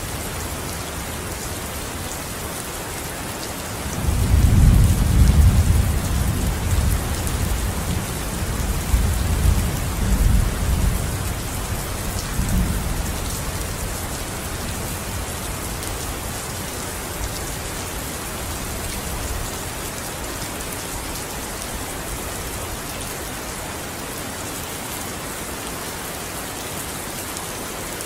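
Steady rain falling, with a roll of thunder that breaks in about four seconds in, rumbles loudest for a few seconds and fades away over the next ten or so.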